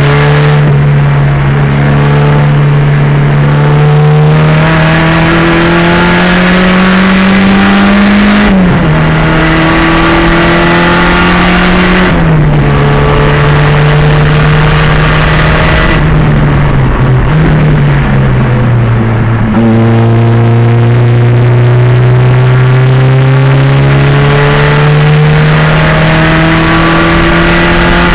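Turbocharged 2.0-litre engine of a 1987 Fiero race car under acceleration, its pitch climbing steadily in each gear and dropping suddenly at gear shifts about eight and twelve seconds in. From about sixteen to nineteen seconds the pitch falls and wavers, as when braking and downshifting, then it climbs again through a long pull to another shift near the end.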